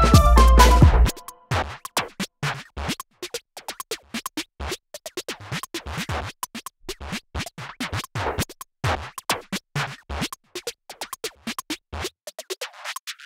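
Background music cuts off abruptly about a second in. After it come irregular crinkles and clicks of hands handling a watch's tags and packaging.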